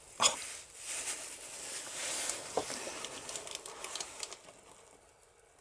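Hands working a small rubber seal over a brake master cylinder plunger: light rustling and small clicks of handling, with one sharp click just after the start. The sounds fade to quiet near the end.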